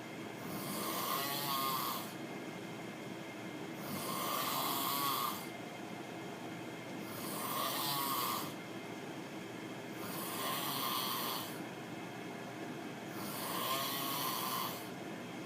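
A person snoring, super noisy: five snores in a steady rhythm, one about every three seconds, each lasting over a second.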